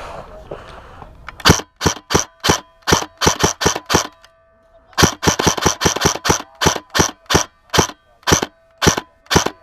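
Airsoft gun firing single shots in quick succession, about three cracks a second, in two strings with a pause of about a second between them. Rustling comes before the first shot.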